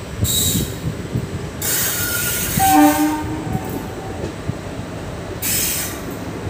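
Passenger train running along the line, heard from the first coach behind the locomotive: a steady rumble with regular wheel clacks and bursts of rushing noise. A short horn blast sounds about two and a half seconds in and is the loudest moment.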